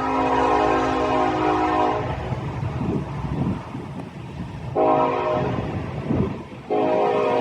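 Train locomotive horn sounding in long blasts: one ends about two seconds in, another sounds from about five to six and a half seconds, and a third starts just after it. The low rumble of the train carries on between the blasts.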